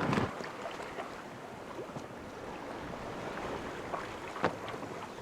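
Water washing against a sailboat's hull at sea, with a louder rush at the start and a few sharp clicks, the clearest about four and a half seconds in.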